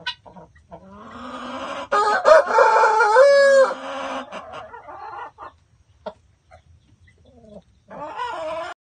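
Rooster crowing once, a long call that starts about a second in and lasts about three seconds, followed by softer clucking and a short wavering call near the end.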